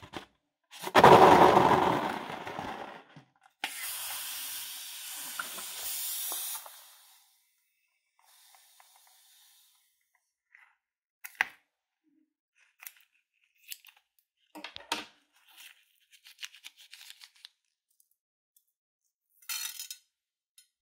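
Air let out of a rubber balloon: a loud rush of air about a second in that fades, followed by a thinner hiss lasting a few seconds. Later come scattered small clicks and taps.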